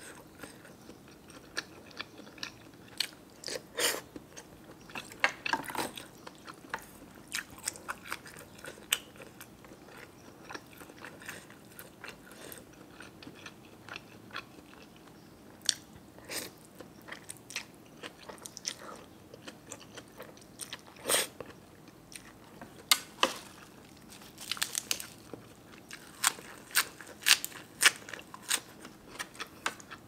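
Close-miked eating: a person biting and chewing food, with crisp crunches and small clicks coming irregularly, clustered in busier spells near the start and again in the last third.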